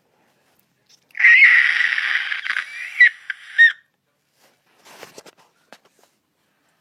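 A person forcing a weird, harsh, hissing screech from the throat, lasting about two and a half seconds and breaking into short squeaks near its end. A few faint clicks follow.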